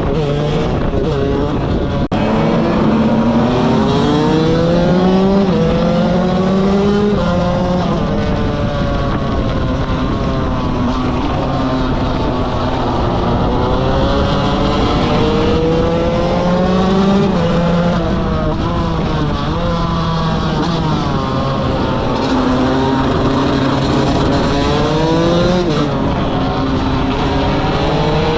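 KTM 125 motorcycle engine at full throttle, its revs climbing and falling back again and again.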